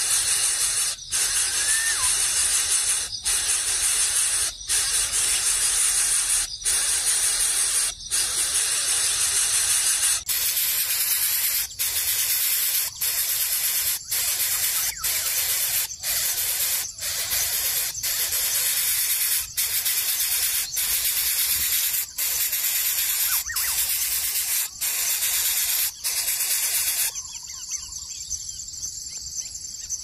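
Greater coucal nestling hissing in a long series of hisses, each about a second long with a short break between them. The hissing stops about three seconds before the end, leaving faint bird chirps.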